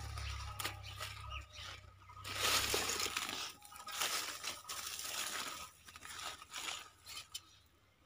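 A small hand hoe digging into dry soil and dead leaves to lift potatoes: repeated scrapes, chops and crunches. The loudest bout comes about two to three seconds in.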